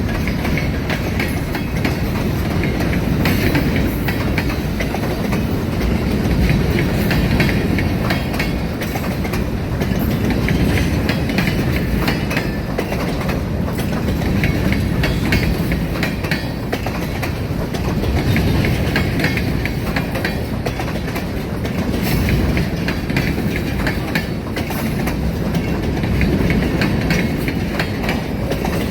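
Freight train rolling by, a continuous heavy rumble with the wheels clicking over rail joints.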